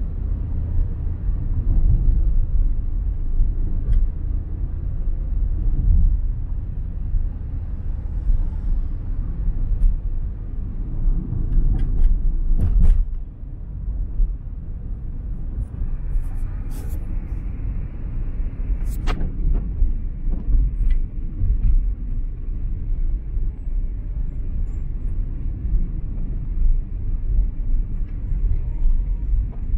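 Low, steady rumble of a car driving on the road, with a few sharp knocks near the middle.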